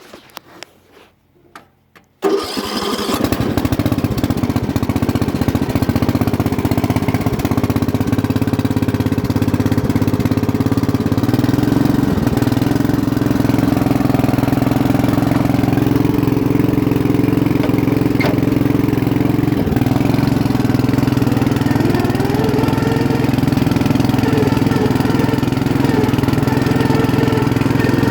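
2006 MTD riding lawn mower's 13.5-horsepower engine starting about two seconds in and then running steadily, freshly revived with a new carburetor and tune-up after sitting for a decade.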